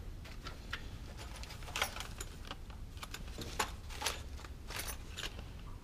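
Light clinks and rattles of metal hand tools being handled and sorted into a plastic tub, a few sharper clicks scattered through.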